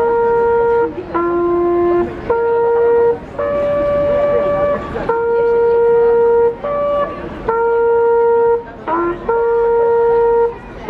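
A single wind instrument playing a slow tune of long held notes at a few different pitches, about nine notes with short breaks between them.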